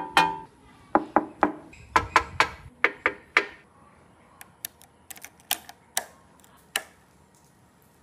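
Sharp taps and knocks of fingers striking a motorcycle's tank, engine covers and fittings: a quick run of loud strikes, a few briefly ringing, then after about three and a half seconds sparser, lighter clicks. No engine running.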